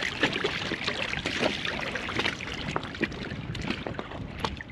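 Shallow lagoon water sloshing and splashing around the legs of someone wading, with many small, irregular splashes.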